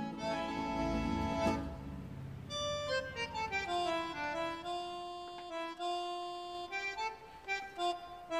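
Instrumental background music: a melody of held notes stepping up and down, over fuller low chords in the first second or so.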